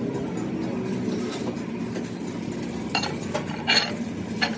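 A steady low hum with a few sharp metallic clinks in the second half, typical of metal parts or tools knocking together.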